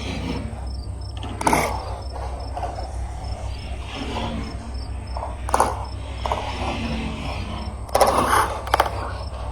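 Marbles rolling and clacking along a marble-run slide track: sharp clicks about a second and a half in, near the middle and a quick cluster near the end, with softer rolling between. Crickets chirp steadily in the background.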